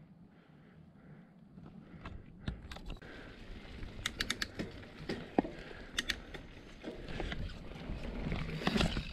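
Canyon Torque full-suspension mountain bike rolling down a dirt forest trail: a rumble of tyres on dirt that grows louder from about two seconds in, with sharp clicks and rattles from the bike over the bumps.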